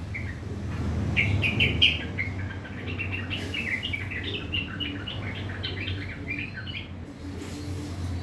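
Yellow-vented bulbul (trucukan) singing a fast run of short, harsh chattering notes, pausing near the end.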